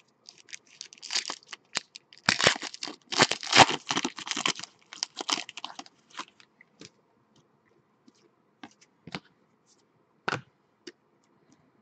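A 2013-14 Panini Elite basketball card pack's wrapper being torn open and crinkled, loudest between about two and five seconds in. Then a few scattered soft ticks as the cards are handled.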